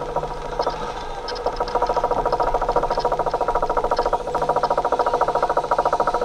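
Roller coaster train's anti-rollback ratchet clacking in a fast, even rhythm as the chain pulls it up the lift hill. The clicks pick up speed and become denser about a second in, over a steady low mechanical hum.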